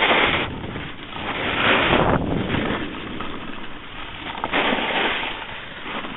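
Rushing noise of riding downhill on snow: wind buffeting the microphone together with edges scraping the snow, swelling and fading three times.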